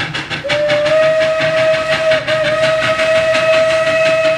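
Recorded steam locomotive: fast, even chuffing with one long, steady whistle blast that starts about half a second in and stops near the end.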